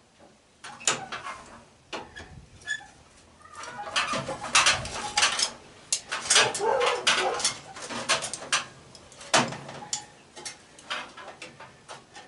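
Irregular metal clanks, clicks and scrapes from taking apart an air-conditioner condenser unit, busiest in the middle.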